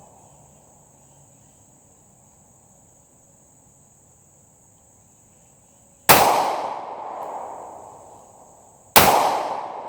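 Two shots from a Glock 27 pistol in .40 S&W, about three seconds apart, each followed by a fading ring lasting a second or two. A steady high insect drone runs underneath.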